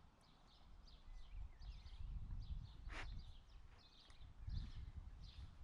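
Small garden birds chirping and singing faintly, many short calls overlapping, over a low uneven rumble. A single sharp click sounds about three seconds in.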